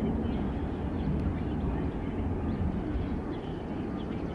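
Steady low rumble of a freight train going away, easing slightly, with a few faint bird chirps over it.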